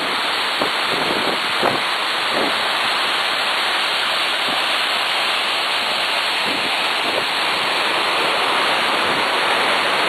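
Waterfall: a steady, loud rush of falling water, with a few brief low bumps between about half a second and two and a half seconds in.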